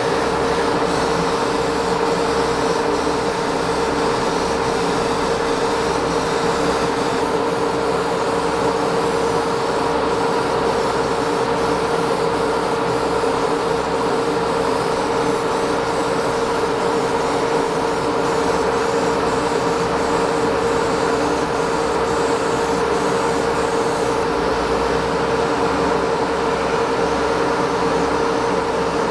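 Hobby spray booth's extractor fan running steadily: a constant humming drone with an even rush of air.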